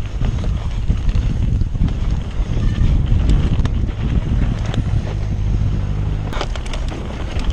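Wind buffeting the microphone of a camera mounted on a mountain bike rider riding down a dirt trail, mixed with the rumble of knobby tyres on dirt and bike rattle, with a few sharp knocks over bumps near the end.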